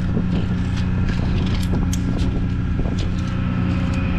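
A motor engine running steadily with a constant low hum, with a few light clicks and knocks over it.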